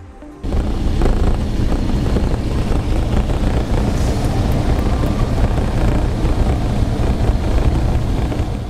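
Engine and road noise heard from inside a moving vehicle: a loud, steady, deep rumble that starts abruptly about half a second in.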